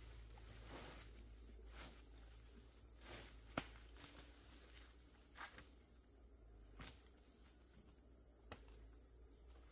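Faint, steady high-pitched insect trill, with a few scattered soft knocks.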